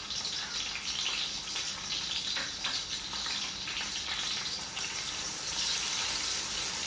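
Sliced onions sizzling in hot ghee and oil: a steady frying hiss with a few small pops. It gets a little louder near the end as a spatula stirs them through the oil.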